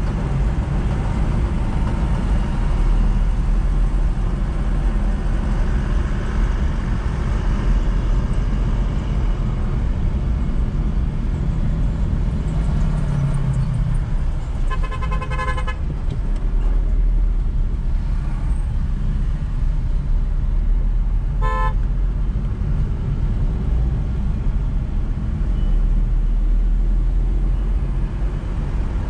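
Steady road and engine rumble of a car driving in city traffic. A vehicle horn sounds for about a second around halfway through, and a shorter honk follows some six seconds later.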